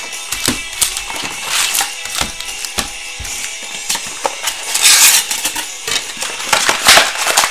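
Trading-card packaging being torn and crinkled open: a run of crackly tearing and rustling bursts, loudest about five and seven seconds in, with faint background music underneath.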